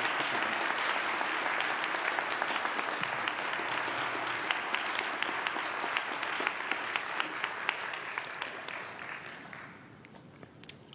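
Audience applauding, the clapping fading away over the last couple of seconds.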